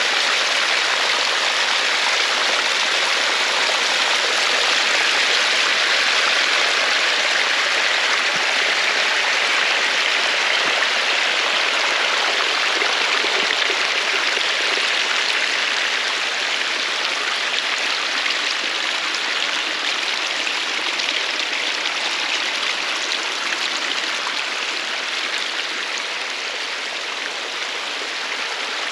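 Steady rushing of flowing water from a stream or waterfall, gradually getting quieter over the second half.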